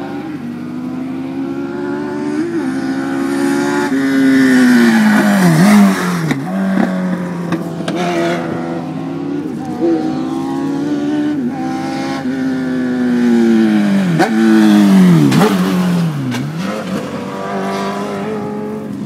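Legend race cars, driven by Yamaha motorcycle engines, running at high revs as they pass close by. Engine pitch drops sharply as each car goes past: two cars pass in quick succession about six seconds in and again around fifteen seconds in.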